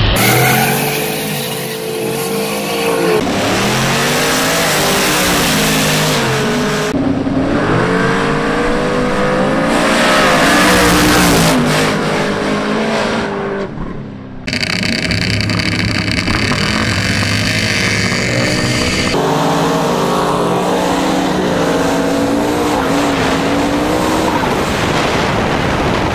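Drag-race engines, a nitrous small-block Ford Fox-body Mustang and a twin-turbo 1951 Ford pickup, launching and accelerating hard down the strip. Their engine notes climb and drop back at each gear change, and the sound cuts abruptly several times between runs and camera angles.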